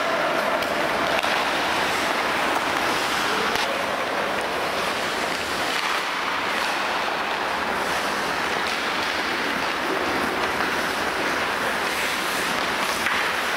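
Ice hockey practice on the rink: a steady hiss of skate blades scraping and carving across the ice, with a few faint clacks of sticks and pucks.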